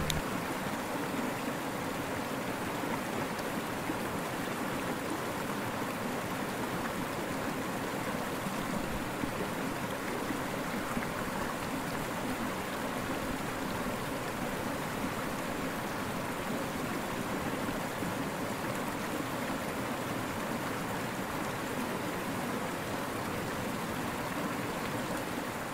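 Small rocky mountain creek flowing: a steady rush of water over stones.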